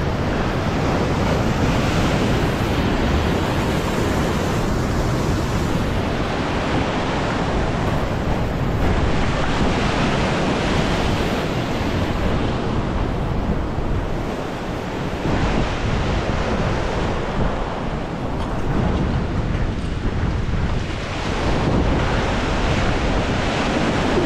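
Ocean surf breaking and washing over the rocks at the foot of a sea cliff, swelling and easing every few seconds, with wind on the microphone.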